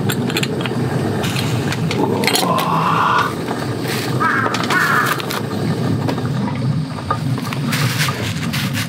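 A crow caws, once about two and a half seconds in and again about four seconds in, over a steady low crackle from a small pot of broth simmering on a camp stove.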